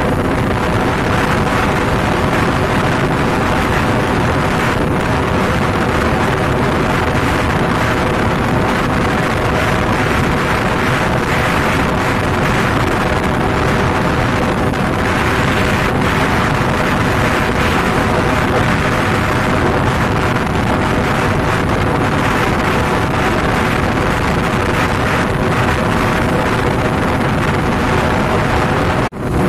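Wind rushing over the microphone of a motorcycle riding at a steady cruising speed, with the bike's engine running evenly underneath. The sound cuts out briefly near the end.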